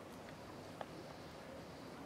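Quiet woodland background with a faint steady hiss and a single short click a little under a second in.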